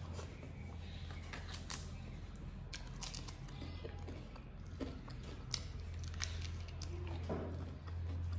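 Close-miked chewing of a mouthful of rice and crisp papad, with irregular sharp crunches and wet mouth clicks. A steady low hum runs underneath.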